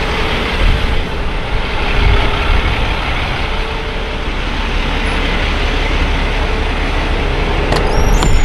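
Semi truck running: a steady low engine rumble under a dense wash of noise, with a faint steady hum. A brief high squeak rises near the end.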